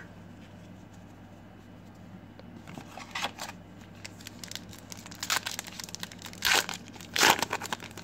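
Foil trading-card pack wrapper crinkled and torn open by hand, in several short rustling bursts starting about three seconds in, the loudest near the end.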